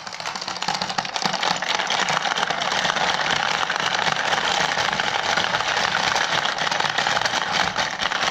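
Hungry Hungry Hippos board game being played hard: several players slapping the plastic levers so the hippo heads snap forward again and again, a fast continuous clatter of plastic on plastic with marbles rattling across the board. It builds up over the first second, then keeps going without a break.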